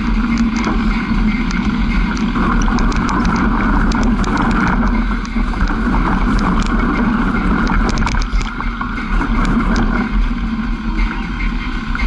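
A vehicle's engine running steadily at an even pitch while driving over a rough dirt track, with spells of rattling clicks from the bumpy ride.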